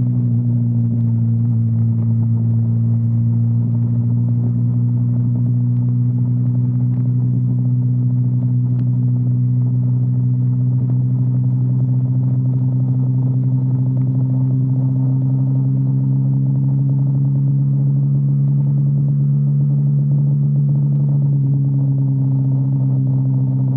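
Sport bike engine cruising at a steady speed, its pitch holding constant with no shifts or revving.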